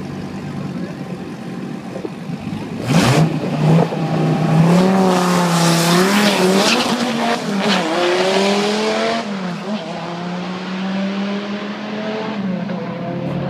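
Twin-turbo Dodge Viper V10 at the drag-strip start line, running steadily, then revving hard about three seconds in. The engine pitch wavers up and down with tire squeal for several seconds, then drops back to a steady high idle about nine seconds in.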